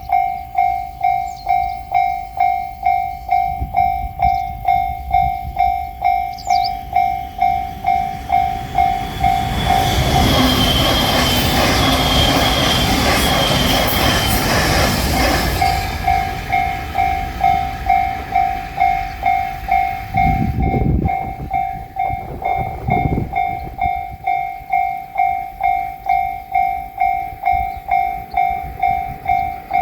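Japanese railway level-crossing warning bell ringing steadily, about two strikes a second. About ten seconds in, a JR Shikoku limited express electric train rushes past and drowns the bell for about six seconds, then the bell rings on after it clears.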